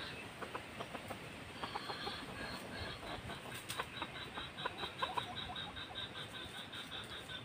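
Wild red junglefowl rooster foraging in dry leaf litter: short rustles and scratches with soft clucks. Behind it runs a faint rapid pulsing call, about six pulses a second.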